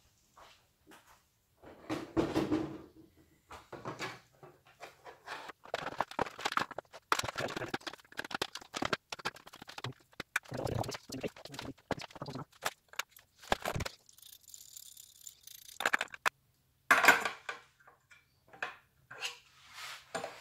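Handling noise of a Dremel Moto-Saw being turned over and fitted together: a string of irregular plastic knocks, clicks and rattles, with short rustles, against a wooden workbench.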